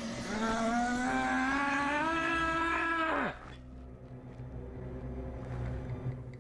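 A young man's long, drawn-out groan that rises slowly in pitch, then drops sharply and cuts off about three seconds in. A quieter low steady hum follows.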